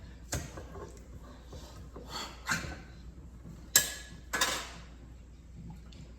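Kitchen clatter: about five sharp knocks and clinks of dishes or utensils being handled, the loudest a bit under four seconds in with a brief ring.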